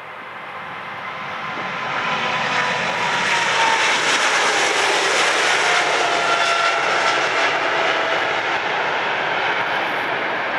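Boeing 777-200's twin GE90 turbofan engines at takeoff thrust as the airliner lifts off and climbs past. The roar grows louder over the first couple of seconds and then holds, with a whine that slides slowly down in pitch as it passes.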